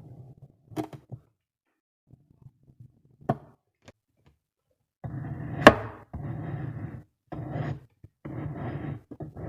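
Kinetic sand being cut and pressed: short soft crunches with a couple of light taps, then from about halfway a series of longer crunching scrapes about one a second, with one sharper knock among them.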